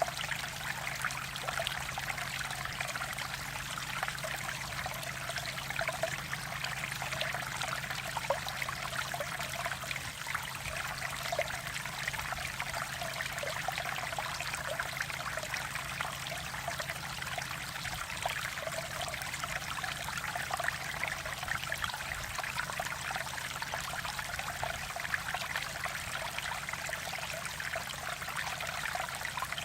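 A mountain-valley stream running over rocks, a steady burbling trickle of water that does not change.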